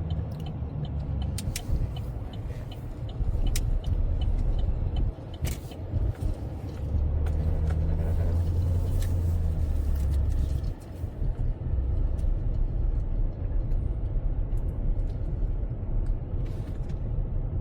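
Vehicle driving slowly, heard from inside the cab: a steady low engine rumble and road noise. A regular ticking, a little over two a second, runs through the first few seconds.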